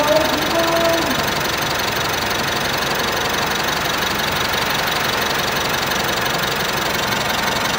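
Mitsubishi Pajero engine idling steadily during its idle-speed relearn procedure.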